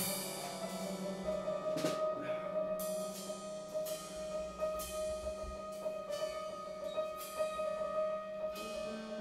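Improvised music on piano and drum kit: a high note held or repeated from about a second in over a lower note, with a few scattered drum and cymbal strikes.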